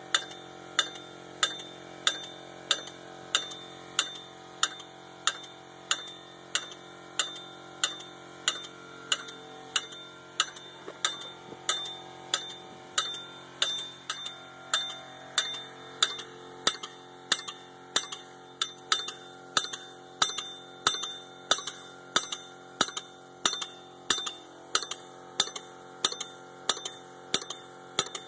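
Graham White steel diesel-locomotive bell rung by compressed air, its clapper striking steadily about three times every two seconds, with each stroke's ring carrying on under the next.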